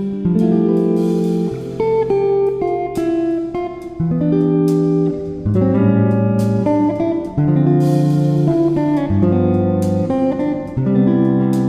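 Background instrumental music: a plucked-string melody over low bass notes, with notes and chords changing about every second.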